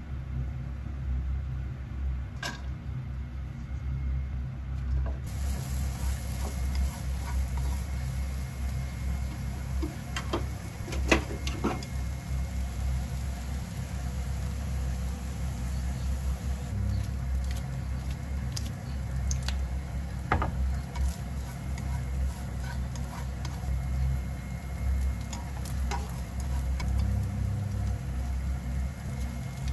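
Julienned carrots sizzling in sesame oil in a frying pan. The sizzle comes in about five seconds in, with scattered clicks and knocks of utensils against the pan over a steady low rumble.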